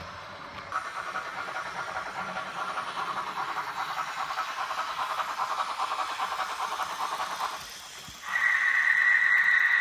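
Model steam locomotive running with a rapid, rhythmic pulsing sound, then, about eight seconds in, a loud, steady whistle blast.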